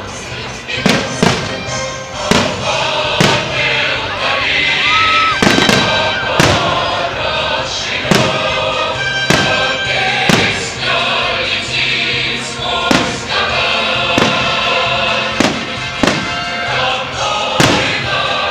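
Festival fireworks going off, one sharp bang about every second, over loud music with a choir singing.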